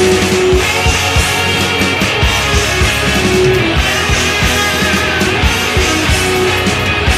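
Loud rock music with guitar and a driving drum beat.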